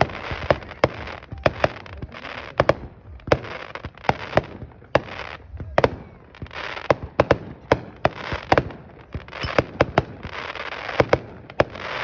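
Red Apple Fireworks 'Tokyo Rose' consumer firework going off: a rapid run of sharp bangs with crackling between them, in several waves separated by short lulls.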